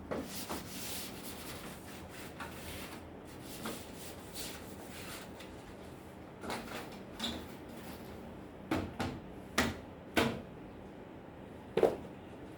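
Scattered clicks and knocks of objects being handled, with a rustling noise in the first few seconds; the loudest sharp knocks come in a cluster near the end.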